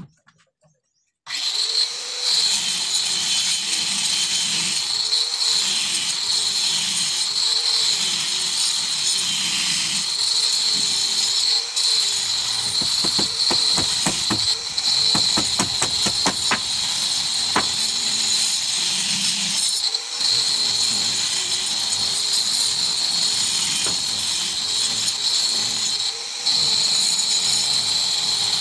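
Handheld electric power tool running steadily against a concrete hollow-block wall, cutting or drilling for the electrical wiring; its low note wavers as it bites into the block. It starts abruptly about a second in, with a patch of fine rattling clicks midway.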